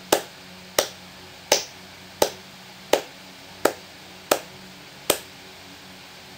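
Eight hand claps at a steady beat, evenly spaced a little under a second apart. Each clap marks one beat of two four-beat measures.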